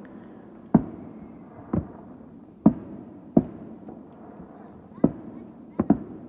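Fireworks going off: seven sharp bangs at uneven intervals, the last two in quick succession near the end.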